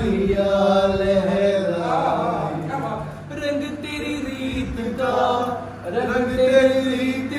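A man singing unaccompanied, holding long notes that glide between pitches, with short pauses for breath.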